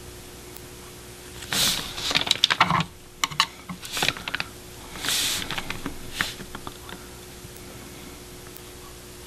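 Clusters of small clicks and taps, with two short rustles, from a liner brush being worked in paint on a palette sheet and a hand moving over paper.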